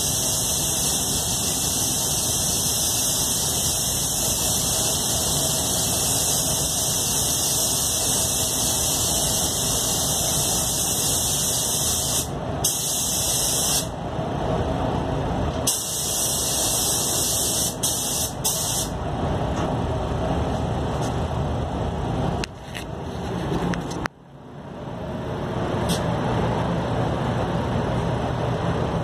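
Iwata Supernova spray gun spraying clear coat: a steady, high air hiss that breaks off about twelve seconds in, comes back briefly, and stops for good about two-thirds of the way through. The steady rumble of the paint booth's ventilation runs under it.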